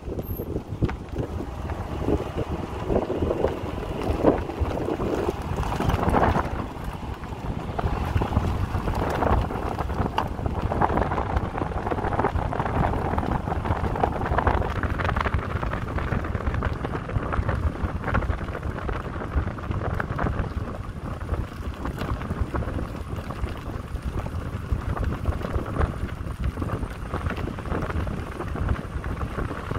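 Car rolling slowly along a concrete runway: wind buffets the microphone over a steady low rumble of engine and tyres on the concrete slabs.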